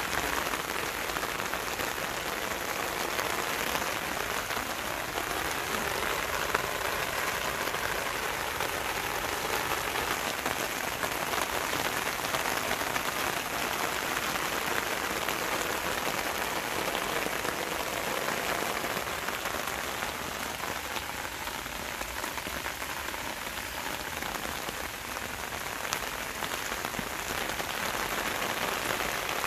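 Steady rain falling on a garden, countless drops hitting leaves, grass and ground in an even hiss of fine ticks.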